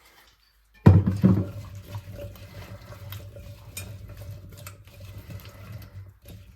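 Kitchen tap turned on about a second in, water running steadily into the sink with a few small knocks, then shut off near the end: rinsing under the tap.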